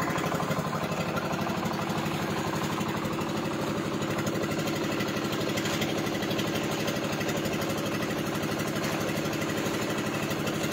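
Small wooden fishing boat's engine running steadily, with an even, fast chugging pulse.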